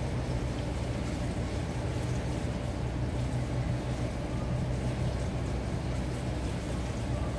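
Steady low mechanical hum with a faint hiss over it, even throughout.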